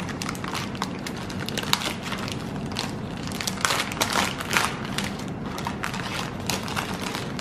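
Shiny gold wrapper of a Royce' Nama chocolate box being peeled open and crumpled by hand: dense, irregular crinkling and crackling.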